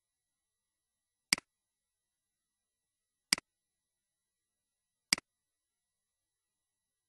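Three computer mouse clicks about two seconds apart, each a sharp press followed at once by a fainter release.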